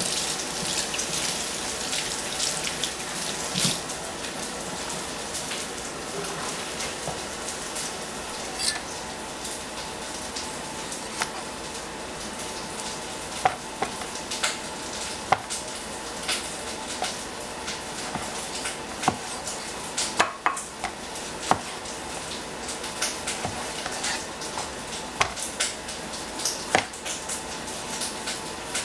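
Steady sizzle of onion frying in a hot pan, with irregular sharp knocks of a cleaver cutting through tomatoes onto a plastic cutting board.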